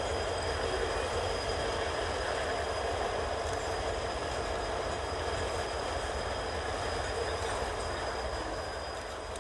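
CSX freight train passing: the locomotives' diesel engines running as they move away, then covered hopper cars rolling by with a steady rumble of wheels on rail and thin, steady high-pitched ringing. The sound eases slightly near the end.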